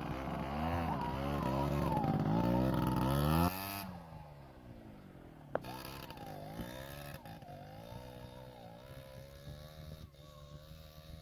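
Small off-road motorcycle engine revving up and down under load on a hill climb. It is loud for the first three and a half seconds, then drops suddenly and carries on fainter, still rising and falling, with a single sharp click partway through.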